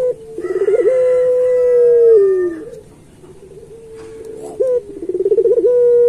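Puter pelung, a long-voiced domestic ringneck dove, cooing twice. Each call is a short note, a quick rolling warble, then a long held note that slides down in pitch at its end.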